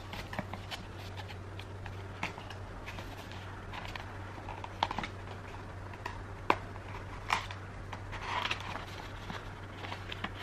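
Small paperboard box being handled and opened by hand: scattered light clicks and scrapes of card, with a sharper snap about six and a half seconds in and a brief rustle near the end. A steady low hum runs underneath.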